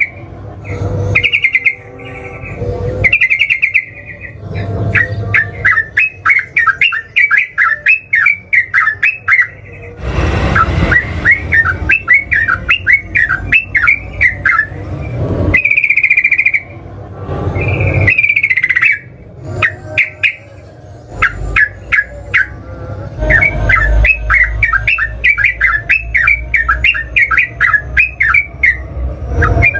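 Yellow-vented bulbul (trucukan) singing in long, rapid runs of bubbly chirps lasting several seconds each, broken by short, loud, sweeping calls.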